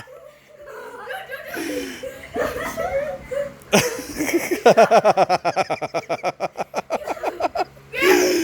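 Kids laughing, softly at first, then from about halfway in breaking into a long run of quick, repeated hard laughs.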